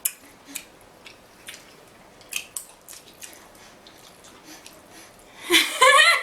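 Close-miked eating of a sauced seafood boil: scattered sharp clicks and wet smacks as shellfish is handled and chewed. Near the end, a loud drawn-out vocal exclamation.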